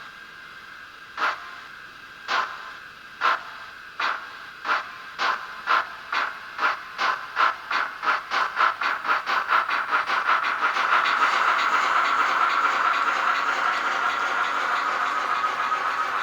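Sound decoder of a Fleischmann N-scale BR52 steam locomotive model playing steam exhaust chuffs. They start about one a second, quicken steadily as the locomotive speeds up, and blur into a continuous hiss about ten seconds in.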